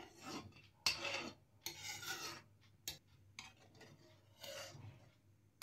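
Metal ladle scraping around the bottom of a heavy-bottomed steel kadhai as milk is stirred continuously while it simmers and reduces, in uneven scraping strokes with a sharp clink a little under a second in and another near the middle.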